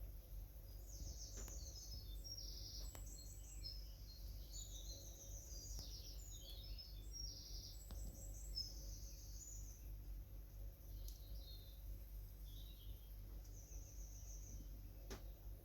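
Woodland songbirds singing: many short, high-pitched chirping and trilling phrases that overlap in the first half and thin out later, with a faint steady low hum underneath.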